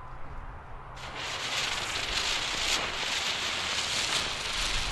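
Ground spinner firework hissing as it burns and spins on concrete. The sharp, steady hiss of sparks starts suddenly about a second in and holds loud.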